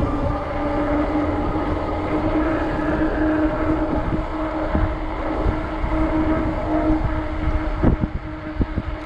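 Wind buffeting the microphone while riding a fat-tire electric bike, over a steady hum from the bike's motor and fat tyres rolling on pavement. A couple of short knocks come near the end.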